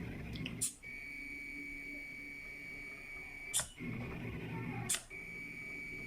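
Stepper motors of an Arduino pen plotter running with a steady high whine and a low rumble, broken three times by a sharp click: about half a second in, past the middle, and near the end.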